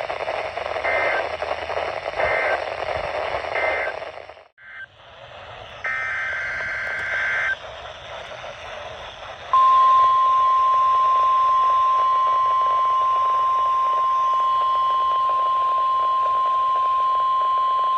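NOAA Weather Radio received through radio hiss. Three short SAME digital data bursts (the end-of-message code that closes a test) are followed by a brief dropout and then one longer data burst. About halfway through, the steady 1050 Hz warning alarm tone of the weekly test starts and holds for about nine seconds.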